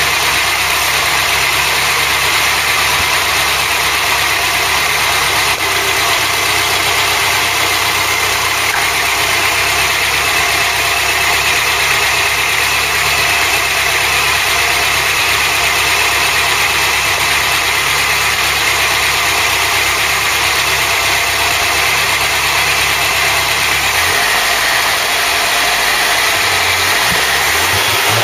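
Freshly rebuilt Ford 2.0-litre Pinto four-cylinder engine idling steadily on its first run, bedding in before its idle is fine-tuned. Its low note changes about four seconds before the end.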